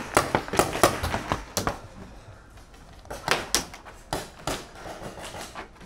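Paintball markers firing: irregular sharp pops in two strings, with a short lull between them about two seconds in.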